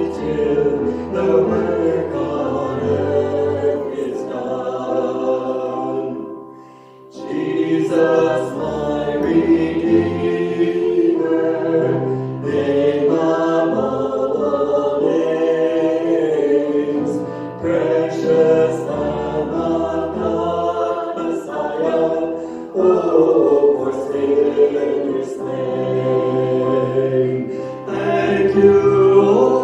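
Choir singing a worship song, with a brief break between phrases about seven seconds in.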